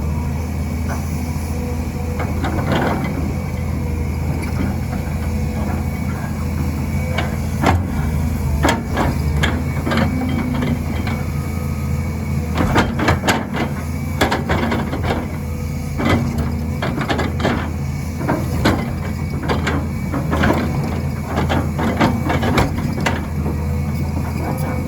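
Volvo EC210B excavator's diesel engine running steadily under working load, with repeated knocks and scraping clatter from the bucket working the soil, in several bunched bouts.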